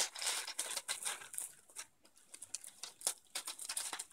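Grey plastic postal mailer bag crinkling and rustling as it is handled and pulled open by hand. The rustle comes in fits, with a short lull about two seconds in, then scattered crackles and clicks.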